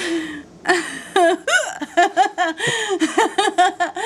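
A woman laughing hard in a rapid run of short, high-pitched bursts, about four a second.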